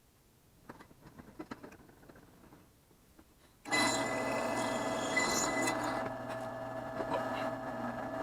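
Faint clicks of handling, then about four seconds in a drill press starts up abruptly and runs steadily, with a low hum and a high whine over it.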